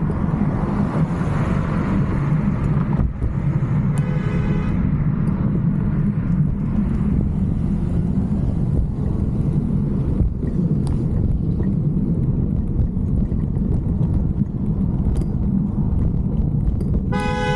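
Steady low rumble of wind and traffic noise while riding a bicycle in traffic. A car horn honks briefly about four seconds in and sounds again, longer, near the end.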